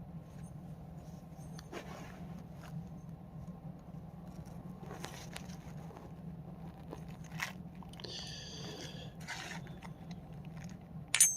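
Quiet handling of small metal parts: a few light clicks and scrapes and a short rattle about eight seconds in, as the screw-on muzzle brake of a FLAK 10 airsoft shotgun is taken off and swapped.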